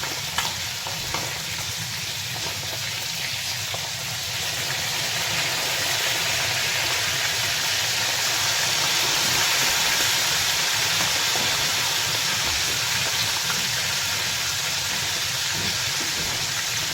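Trout sizzling as it fries in oil and butter in a pan, a steady hiss that grows louder about five seconds in.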